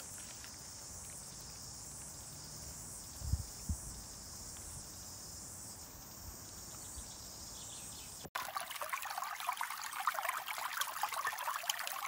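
Bush ambience with a steady, faint high insect hum for about eight seconds, then an abrupt cut to a shallow stream running over rocks, louder and splashy.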